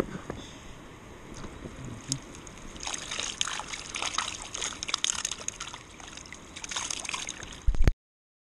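Water splashing and trickling, with a busy run of small splashes from about three seconds in. A loud knock comes near the end, then the sound cuts off.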